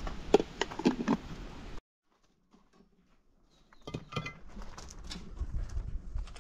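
Several light taps and knocks over wind noise, then the sound cuts out to near silence for about two seconds, then more soft taps and clatter.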